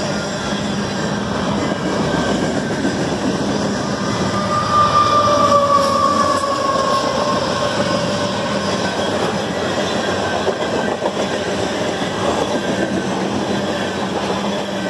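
Freight train cars, tank cars among them, rolling past close by: a steady dense rumble and clatter of steel wheels on rail. From about four to seven seconds in, a drawn-out wheel squeal rises over it, falling slightly in pitch.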